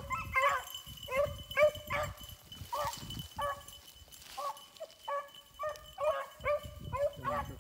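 Beagles giving tongue on a freshly jumped rabbit: a quick run of short, high yelping barks, a few a second, with a deeper-voiced dog joining near the end.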